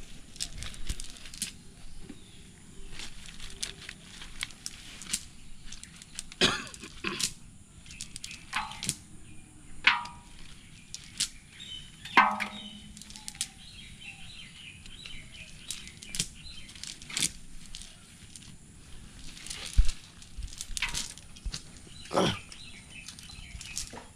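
Irregular rustling and light clicks of a cast net being handled and pulled through the hands, with a few sharper knocks. Birds chirp faintly now and then.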